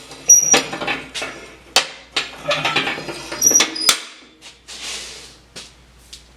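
Metal parts of a hand-made swinging plant hanger being handled and knocked together: a run of sharp clanks and clatter with scraping between them and a couple of short high-pitched tones, the loudest clank near the start.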